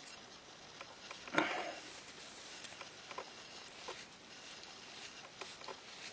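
Faint handling sounds of a Victorinox Forester pocket knife: scattered small clicks and light rustles, with one louder rustling scrape about a second and a half in.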